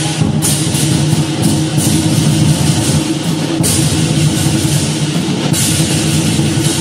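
Loud percussion-heavy music: steady drumming with cymbal crashes every second or so.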